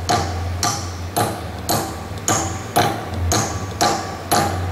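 A small hammer tapping a universal-joint cross and bearing cap into the driveshaft yoke, in repeated sharp metallic strikes about two a second, over a steady low hum.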